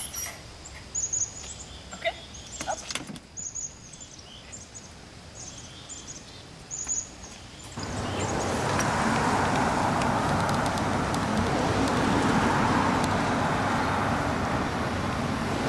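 Quiet outdoor ambience with a few short, high bird chirps and some light knocks and clicks. About eight seconds in it changes suddenly to a steady, louder rushing noise.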